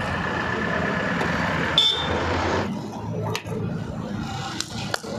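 Swaraj 855 tractor's three-cylinder 3307 cc diesel engine idling steadily. There is a short click about two seconds in, and a few light knocks near the end.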